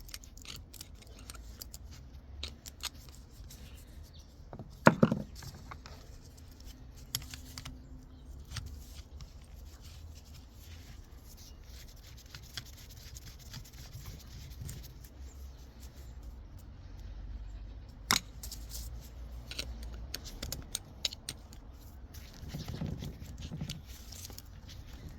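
Metal gearbox parts being handled during disassembly: scattered clicks, scrapes and light metallic knocks, with a loud clank that rings briefly about five seconds in and a sharp knock near eighteen seconds.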